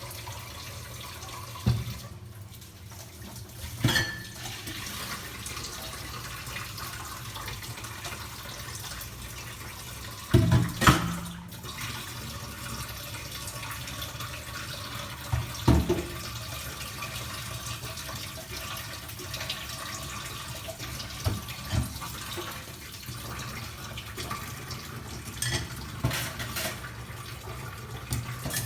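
Tap water running steadily into a sink while dishes are washed, with a few sharp clinks and knocks of dishes or cups against the sink now and then.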